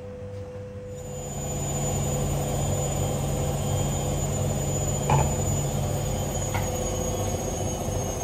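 Pan of coconut cream and pumpkin simmering on a gas burner, its hiss and bubbling swelling about a second in as the lid comes off, under a steady high thin whine. Two short clinks of the glass lid or a wooden spoon against the pan come about halfway through.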